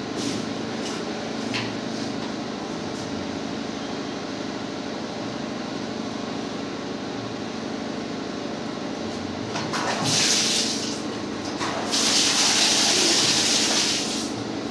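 Concealed wall-mounted flush cistern being worked by hand, with a steady low noise underneath. About ten seconds in comes a short rush of hissing water, then a longer one from about twelve to fourteen seconds, as the flush valve is operated.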